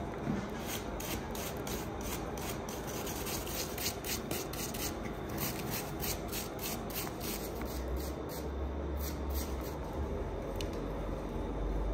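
Hand wire brush scrubbed back and forth over red-hot steel wire rope on an anvil, about three to four rasping strokes a second, brushing the forge scale off the cable. The strokes stop about two seconds before the end.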